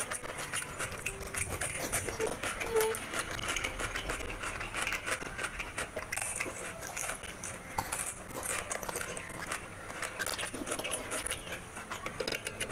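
Close-miked eating by hand: wet squelching as rice and curry gravy are squeezed together in the fingers, and chewing with lip smacks and many small wet clicks.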